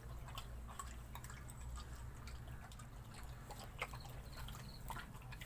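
German Shepherd lapping from a steel bowl: faint wet lapping and small clicks over a low steady hum, with a sharper click near the end.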